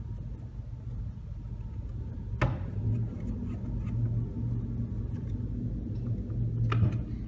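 A steady low rumble, with two sharp clicks about two and a half seconds in and again near the end, as the screws holding the plastic cover of a pressure washer trigger gun are worked loose by hand.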